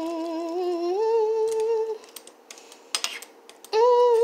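A woman humming long held notes, the pitch stepping up to a higher note about a second in. After a pause of a second or two with a few clicks and scrapes of a metal spoon against the slow cooker's crock, the humming starts again near the end.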